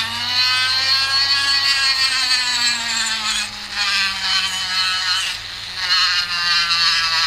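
Vevor 780 W flex shaft grinder's motor whining as the foot pedal brings it up to high speed. The pitch rises over the first second, then holds high with small dips and wavers.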